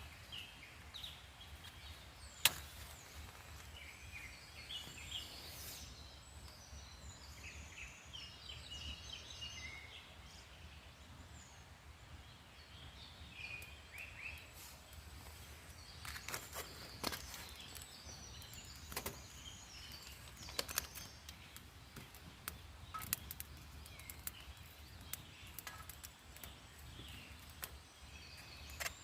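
Small birds chirping and singing over a steady low outdoor rumble, with scattered sharp snaps and clicks, the loudest about two and a half seconds in and several more in the second half.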